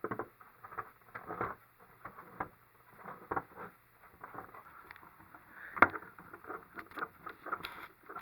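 Small screws being fitted with a hand screwdriver into a 3D printer's hood frame: irregular clicks, taps and scrapes of the driver and parts being handled, with one sharp click about six seconds in.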